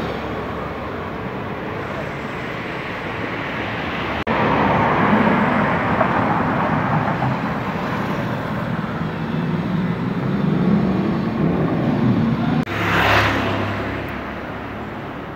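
Motorcycle engine running, a steady low rumble. The sound changes abruptly about four seconds in, and there is a brief louder surge just after thirteen seconds.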